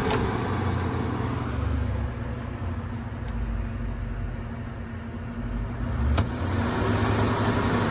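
5000 BTU window air conditioner switched to high cool, giving a steady low hum over fan noise, with a click near the start and another about six seconds in. It is powered from a Bluetti EB3A power station in power-lifting mode and does not properly start cooling.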